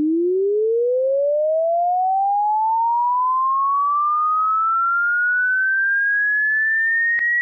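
Hearing-test sine tone sweeping steadily upward in pitch, climbing quickly at first and then more slowly, from a low hum to a high whistle, at constant loudness.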